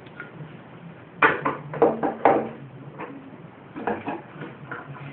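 Metal clinks and knocks from a hand tool working on the nuts that hold a lawn mower engine: a quick run of about five sharp knocks a little over a second in, and a few more near four seconds.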